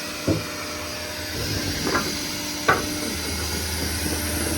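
Steady mechanical hum from the service truck's running hydraulic system, with three sharp clicks or knocks, and a deeper hum that swells about three seconds in as the hydraulics take load.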